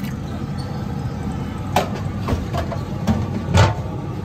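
A metal ladle knocks against the rim and side of a large steel cooking pot about five times, irregularly, as a pot of chickpea curry is stirred, over a steady background of street noise.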